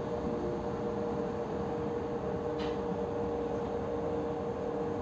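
Inside a moving electric passenger train: a steady low rumble of the running train with a constant hum, and one short sharp tick about halfway through.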